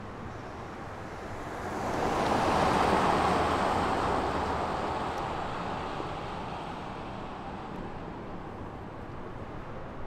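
A vehicle passing by on the street: a rush of tyre and road noise that swells about two seconds in, peaks around three seconds, then fades away slowly.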